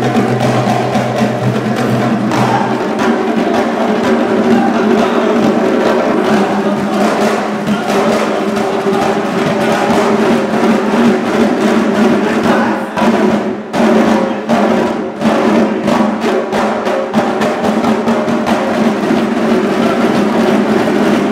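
A group of double-headed hand drums beaten by hand in a fast, dense rhythm over a steady backing of sustained tones. About two-thirds of the way through, the beat breaks into short accented hits with brief gaps, then picks up again.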